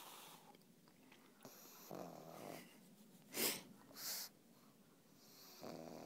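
A pug snoring: two rattling snores about four seconds apart, with two short, hissing puffs of breath between them, the first puff the loudest sound.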